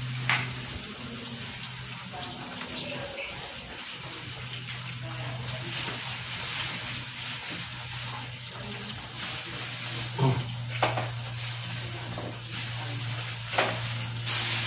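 Damp rock salt heating in a pan on a gas stove: a steady hiss that grows stronger about five seconds in, with a few sharp crackles as the moisture cooks off, over a low steady hum.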